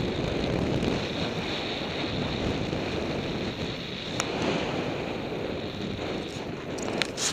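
Wind rushing over the microphone of a wing-mounted camera on a hang glider in flight: a steady rush of airflow noise. There is a faint click about four seconds in and a few sharper clicks near the end.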